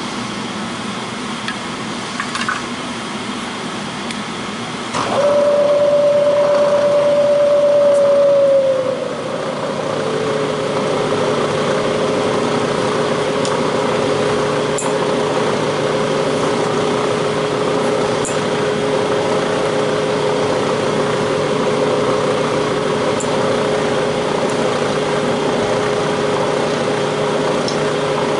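Vertical milling machine milling out a broken tap: a steady machine hum, then about five seconds in a loud whine starts suddenly. It slides slightly lower in pitch a few seconds later and holds steady as the end mill cuts down into the hole.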